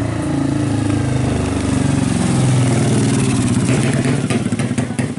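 A 200cc racing motorcycle engine running loud, its revs dipping and rising again.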